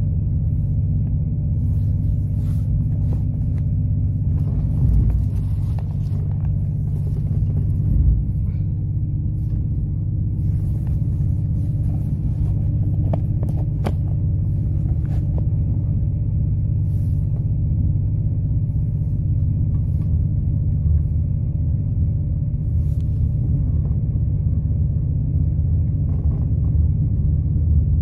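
Diesel train running, heard from inside the carriage: a steady low rumble and engine drone with scattered light rattles and clicks.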